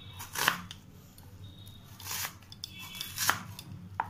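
Large kitchen knife slicing through a raw onion onto a plastic chopping board: four separate crisp cuts, unevenly spaced.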